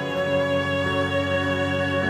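Background music with long held notes, the chord changing a little under a second in.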